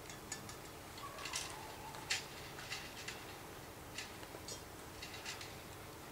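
Scattered light clicks and clinks of thin metal greenhouse frame tubes being handled and knocked together, at irregular intervals, with one faint ringing note that fades about a second in.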